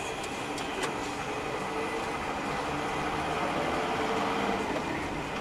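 Steady car engine and road noise heard from inside a moving or idling car, with a few light clicks in the first second.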